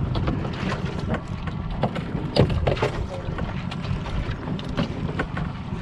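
Wind buffeting the microphone on a small boat at sea, over a steady low rumble, with scattered short knocks and taps.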